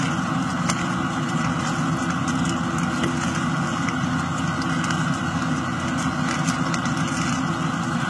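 A steady low hum with no pauses, with a few faint clicks of a plastic Rubik's cube being twisted.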